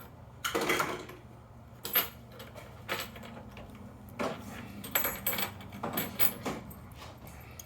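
Short metallic clicks and clinks, about one a second, as a padlock and small lock tools are handled while the lock is shimmed and taken apart.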